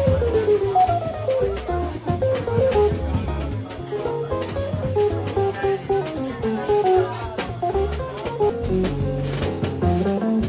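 Live jazz trio: a hollow-body archtop electric guitar plays a single-note melody with runs that fall in pitch, over upright double bass notes and a drum kit played with sticks on the cymbals.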